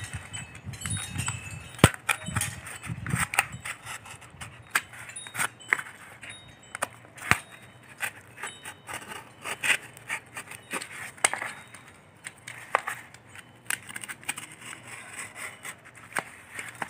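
Snap-off utility knife blade cutting through corrugated cardboard: irregular scratchy strokes and small clicks as the blade is pushed along the cut, with a sharper click about 2 seconds in and another about 7 seconds in.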